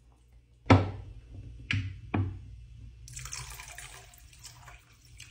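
Three sharp knocks from a wooden spoon against the pot as a thick bolognese sauce is stirred, then water poured from a plastic bottle into the pot, a steady splashing pour starting about three seconds in.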